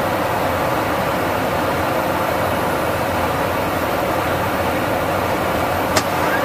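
Steady rush of airflow and jet engine noise heard inside a KC-135 Stratotanker in flight, with one short click about six seconds in.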